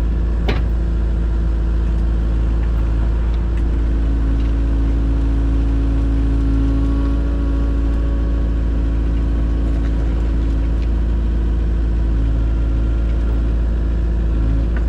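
Heavy diesel engine of construction machinery running steadily, with a short sharp knock about half a second in.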